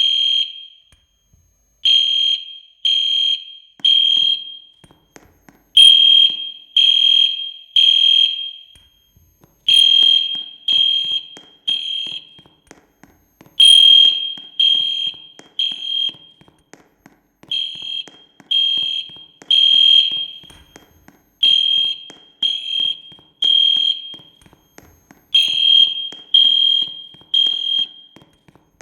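Fire alarm sounding a high-pitched beep in groups of three, about one beep a second with a short pause between groups: the temporal-three evacuation pattern. It is a false alarm that went off with nothing done to set it off.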